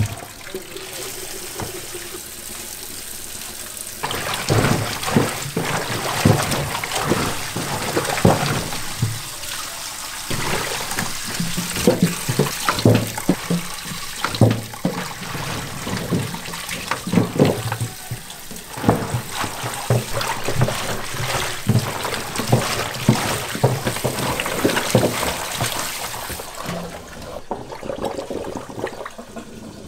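Tap water running into a stainless steel sink full of raw chicken feet; from about four seconds in, gloved hands churn and scrub the feet in the water, with irregular splashing and sloshing. The feet are being rinsed to draw the blood out of them.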